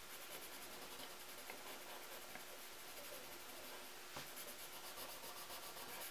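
Paper blending stub rubbed back and forth over graphite on drawing paper: faint rubbing strokes, with a single light tick about four seconds in and the strokes growing more distinct near the end.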